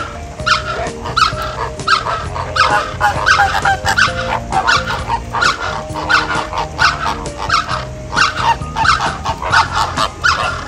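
A flock of greater flamingos honking, with many short calls overlapping several times a second.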